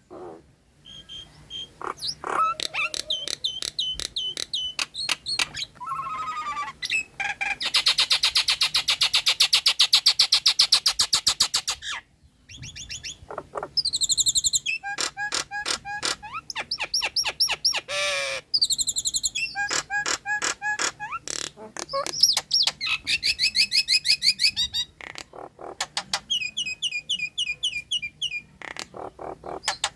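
Nias hill myna singing a varied string of loud whistles and fast chattering runs of repeated notes, several per second, broken by short pauses and a few gliding whistles.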